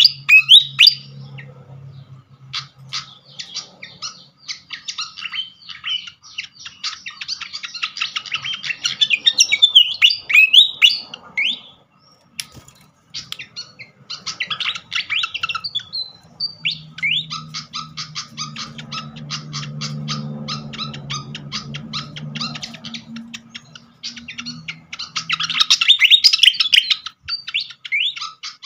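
Pied fantail calling: rapid runs of dry ticking notes, several a second, broken a few times by bursts of high, gliding whistled song. This is a lure recording meant to call fantails in. A low hum sounds partway through.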